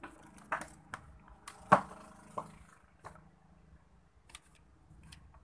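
A few scattered clicks and knocks as an opened electric stand fan and its cord are handled on a workbench, the loudest about two seconds in. The fan motor does not start, because its power plug is loose.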